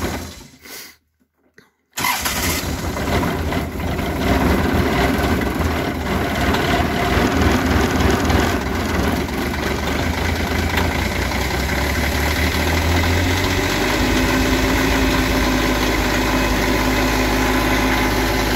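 Kioti CS2510 compact tractor's three-cylinder diesel cold-starting after three months unused: it fires about two seconds in and runs unevenly at first, then settles into a steadier idle about two-thirds of the way through.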